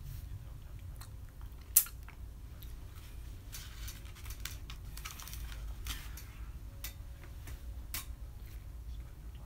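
Small plastic sauce packet being torn open and handled: scattered crinkling and rustling, with one sharp snap about two seconds in and another click near the end, over a steady low hum.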